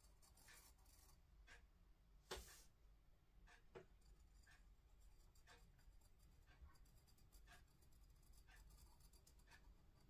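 Faint scratching of a graphite pencil drawing lines on sketchbook paper, short strokes about once a second, the loudest a couple of seconds in.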